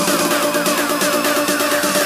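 Electronic dance music background track with a steady beat and a quick repeating falling synth figure.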